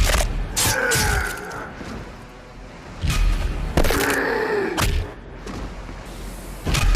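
Arm blade sound effect: a sharp hit followed by a metallic ringing that slides down in pitch. It repeats about every three and a half seconds, twice in full, with a third hit starting near the end.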